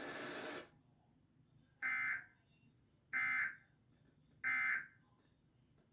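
Emergency Alert System end-of-message code sounding from a TV: three short, identical bursts of buzzy digital data tones, a little over a second apart, marking the end of the alert. Before them, a steady hiss cuts off just after the start.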